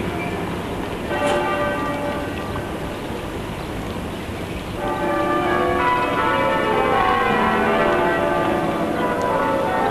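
Bells ringing in overlapping, sustained tones, with fresh strokes about a second in and louder ringing from about five seconds on.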